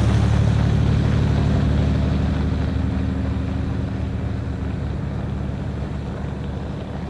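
Pickup truck engine running steadily with a low, even hum, slowly fading away.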